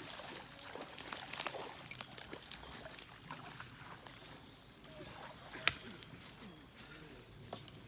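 Faint distant voices over outdoor background noise, with scattered light clicks and one sharp click about five and a half seconds in.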